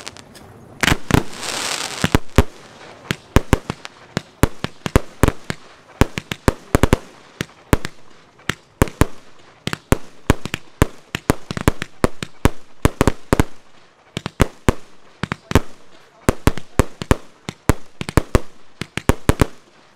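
Aerial firework bursts going off in a rapid, irregular series of sharp bangs, several a second, with a hissing rush near the start.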